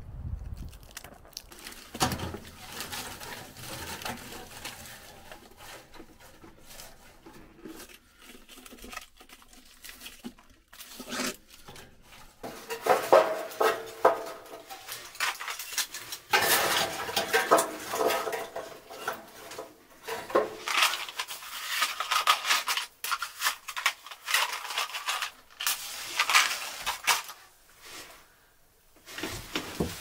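Sticks of wooden kindling and metal parts clattering and clinking at a small metal stove topped with stones while the fire is being laid, loudest and busiest in the second half. Before that, softer tearing and scraping as birch bark is pulled from a tree trunk by hand.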